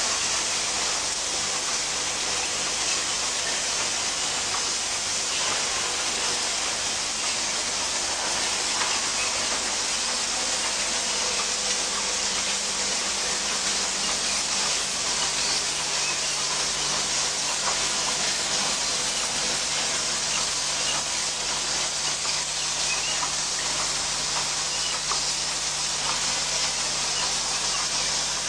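Automatic syringe assembly machines running: a steady dense rattle of small plastic parts in vibratory bowl feeders and along conveyors, heard as an even hiss full of fine ticks, with a faint machine hum underneath.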